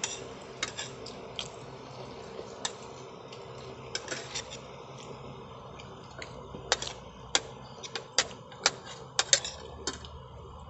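Metal spoon and fork clinking and scraping on a ceramic plate while eating: scattered sharp clinks, coming thicker and louder in the second half.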